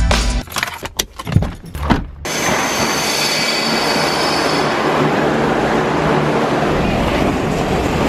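Passenger train running along a station platform: steady rolling noise from about two seconds in, with a high wheel squeal for a couple of seconds in the middle. It is preceded by the tail of background music.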